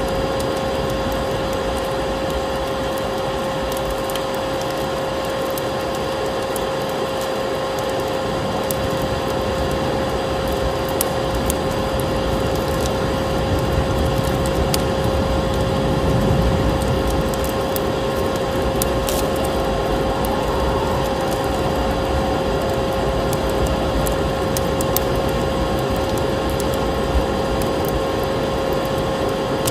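Vacuum cleaner running steadily, its motor giving a constant whine, mixed with the crackle and pops of a wood fire.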